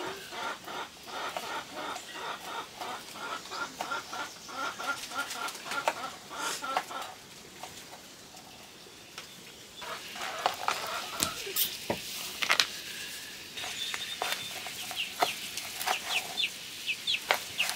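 Chickens clucking, a quick run of short clucks for the first several seconds, then more scattered clucks with a few sharp knocks in the second half.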